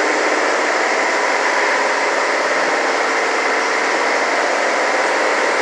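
Steady running machine noise: an even, loud drone with faint steady tones in it, not changing in level.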